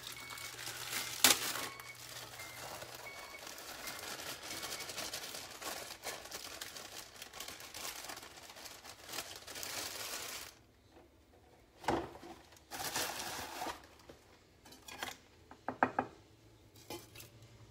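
Bag of brownie mix crinkling as it is handled, torn open and shaken out over a glass mixing bowl, with a sharp snap about a second in; the crinkling stops after about ten seconds, leaving a few short knocks and clicks on the counter.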